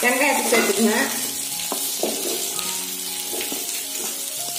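Oil sizzling in an aluminium kadai as a tempering of mustard seeds, urad dal, dried red chillies, green chillies and curry leaves fries, with onion pieces tipped in and stirred with a wooden spatula. A couple of light knocks of the spatula come about two seconds in.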